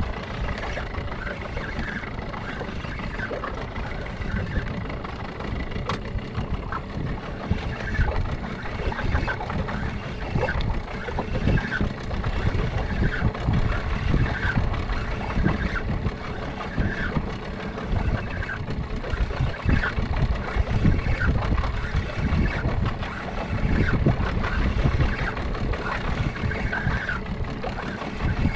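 Wind buffeting the microphone in a steady low rumble, over which a spinning reel is cranked, its winding heard as faint, regular ticks.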